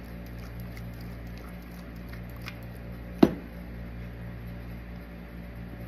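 A single sharp knock about three seconds in, like a hard object set down on a surface, over a low steady hum and faint small ticks.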